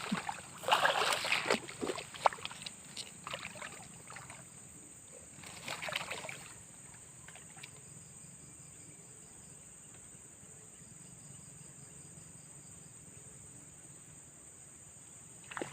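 Water splashing and sloshing, loudest in the first two seconds and again about six seconds in, then a low steady hush with faint fine ticking.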